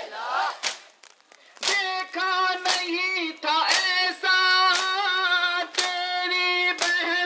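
Noha recitation: a single voice holding long, steady sung notes, with a crowd's hand strikes of matam (chest-beating) landing in time about once a second. A crowd's shout dies away just after the start, before a brief lull.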